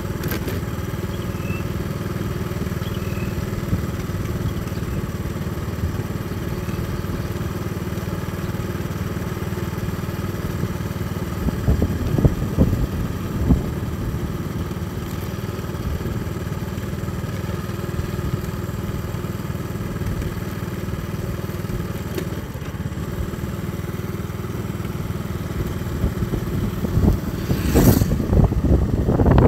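Small motorcycle's engine running steadily as it cruises at about 40 km/h, heard from the rider's seat. The sound gets rougher and louder twice, about twelve seconds in and near the end.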